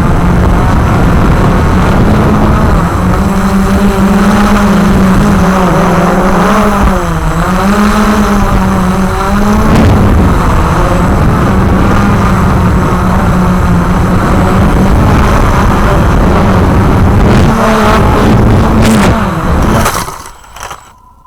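Walkera QR X350 Pro quadcopter's electric motors and propellers running loudly with a steady buzz that wavers in pitch as the throttle changes, then winding down and stopping near the end.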